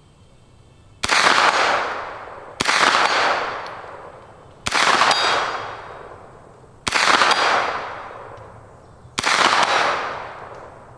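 A 9mm SIG MPX pistol-caliber carbine fired five times, single shots about two seconds apart, each shot trailing off in a long echo.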